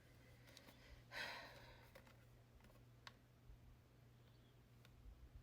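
Near silence in a small room with a faint steady hum. About a second in comes one short breathy sound like a sigh, followed by a few faint clicks.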